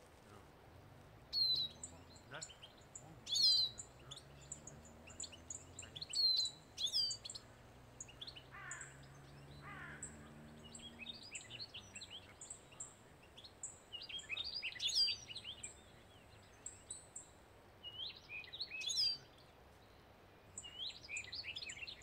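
Small finches calling: repeated short, sharp chirps and twittering phrases scattered throughout, with a thin, high, pulsing trill that starts and stops.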